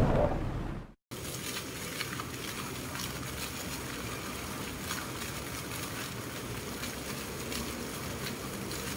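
Music fades out in the first second, then after a brief silence a park fountain's jets splash steadily into its basin, with a faint low hum underneath.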